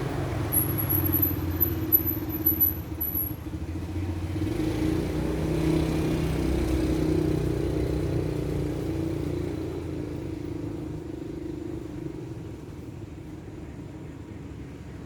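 A motor vehicle's engine rumbling steadily, swelling in the middle and then slowly fading, as if passing by. A few sharp clicks and a thin high whistle come in the first seconds.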